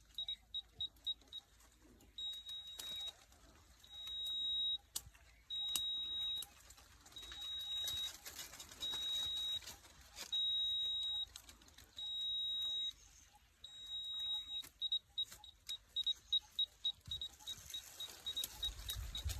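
Electronic beeper sounding one high tone on and off: quick short beeps at first, then longer beeps about every one and a half seconds, then quick short beeps again for the last quarter.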